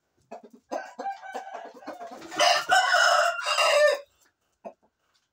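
A rooster crows once, a loud call of about a second and a half that starts a little before halfway. Before it come a run of short clucking calls.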